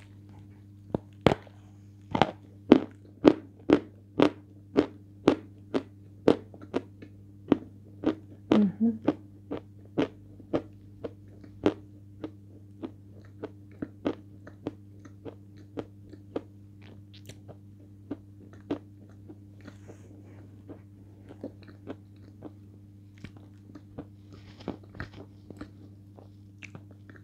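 Biting and chewing a lump of natural edible chalk, Sevryukovsky chalk from Belaya Gora. Sharp crunches come about twice a second and are loudest in the first dozen seconds, then soften into quieter, sparser chewing. A steady low hum runs underneath.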